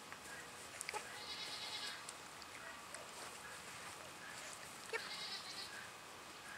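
Faint outdoor ambience with two brief, high-pitched animal calls a few seconds apart, and a few soft clicks.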